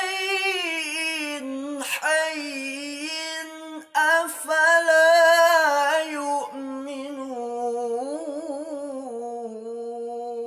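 Melodic Quran recitation (tilawah): one voice holds long, ornamented notes with a wavering melisma, broken briefly about two and four seconds in, and tapers off at the end of the phrase.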